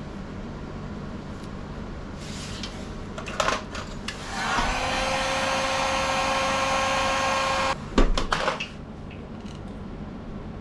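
Electric hot-air blower switched on a little over four seconds in, its fan motor spinning up to a steady whine for about three seconds before cutting off suddenly, used to shrink heat-shrink tubing over wiring. A knock comes before it and a few sharp clicks and knocks just after.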